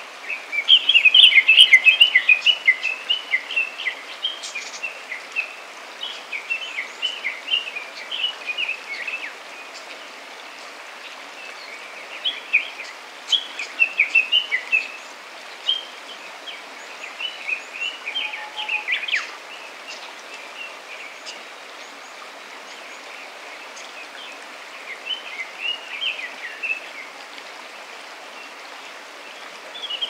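Songbirds singing in quick twittering bursts of a few seconds, about five times, over the steady rush of stream water.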